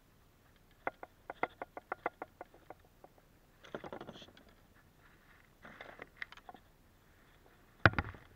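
Fishing pliers, a metal lip grip and lure hooks clicking and rattling while a hooked traíra is unhooked on a plastic kayak. There is a quick run of sharp clicks, then rustling scrapes, and one loud knock near the end.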